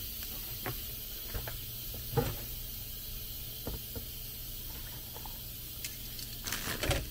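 A pot of pig feet simmering under a glass lid on an electric stove, giving a steady faint hiss. Scattered light clicks run through it, and near the end there is a short clatter as the glass lid is lifted off the pot.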